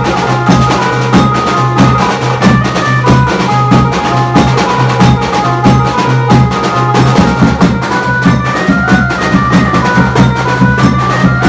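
Maharashtrian banjo-party band playing loud dance music: fast, dense drumming over a steady low bass note, with a high melody moving above.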